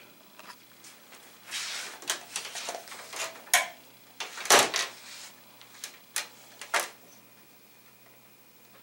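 Handling noises: a string of clicks, knocks and short scrapes as an LED backlight tester and its test leads are picked up and set down on a TV's bare metal backlight panel, stopping about seven seconds in.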